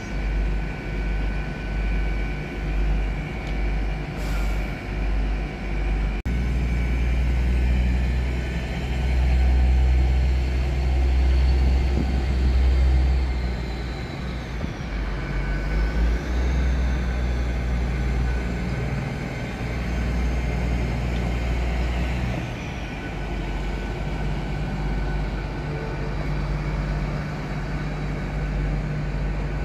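Hitachi Class 800 Azuma bi-mode train running on its underfloor diesel engines as it moves slowly into position at the fuel point: a steady low rumble, pulsing for the first few seconds, then heavier, with faint high whines gliding up and down partway through.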